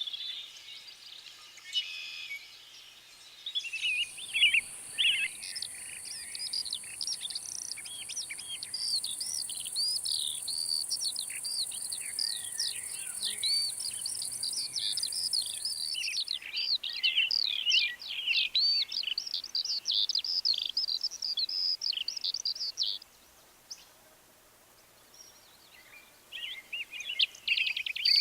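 Several songbirds singing and chirping at once in a dense chorus of quick warbles and calls. A steady high insect buzz joins for several seconds in the middle. The birds fall quiet briefly near the end, then start chirping again.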